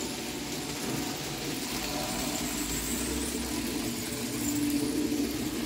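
N-scale model BB304 locomotive with a European-made motor running near full throttle around the layout. Its motor and wheels on the track make a steady whir and rumble that grows a little louder about four and a half seconds in.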